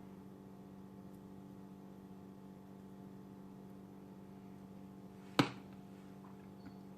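A steady low hum, with a single sharp clink of a fork against the dish about five seconds in.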